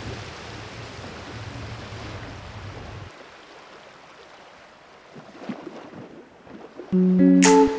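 A steady outdoor rushing noise with a low rumble, which drops away about three seconds in, leaving only a faint hiss. About seven seconds in, guitar music starts, much louder than the noise.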